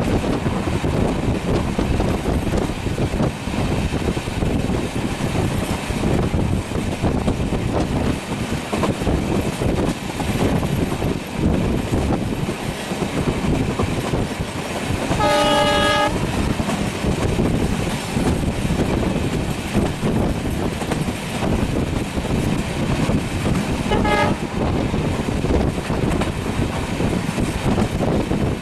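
Train running on the rails with a steady rumble and clatter of wheels. The horn sounds once for about a second about halfway through, then briefly again later, and starts once more at the very end.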